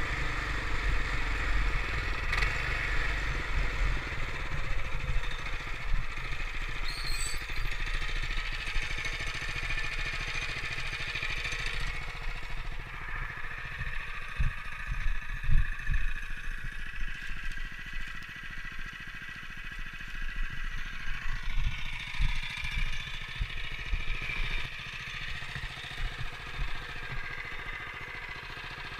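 Small off-road vehicle engine running during a trail ride, with a low uneven rumble that eases off through the middle stretch.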